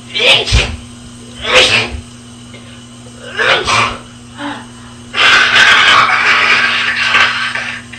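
A person sneezing repeatedly, a few sharp sneezes about a second apart, then a longer noisy burst of over two seconds near the end, over a steady low hum.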